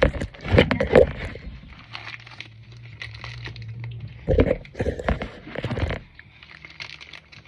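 Plastic packaging of a pack of dog diapers crinkling and crackling as it is squeezed and pulled at by hand while being forced open, with a few short louder thumps.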